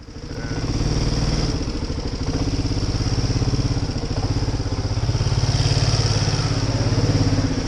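Honda Rubicon 500 ATV's single-cylinder engine running at a steady idle, coming up to full level over about the first second.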